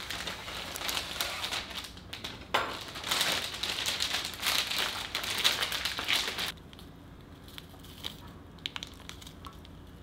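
Dense crinkling and crackling, like something being crumpled or handled, for about six and a half seconds, then a few scattered light clicks.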